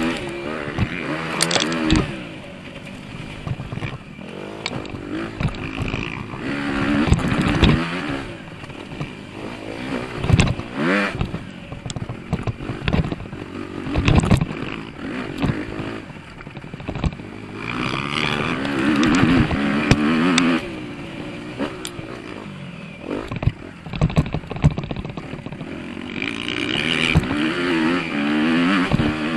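Motocross bike engine revving hard and easing off again and again while riding a dirt track, rising and falling in pitch every few seconds, with sharp knocks from the bike hitting bumps.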